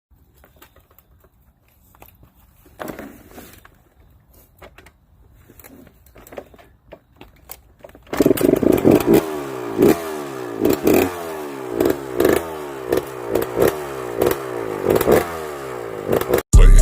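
Light clicks and scraping, then about eight seconds in a Yamaha YZ125's 125cc two-stroke single-cylinder engine is running loud and being revved in repeated blips, the pitch rising and falling about once a second, until it cuts off suddenly near the end.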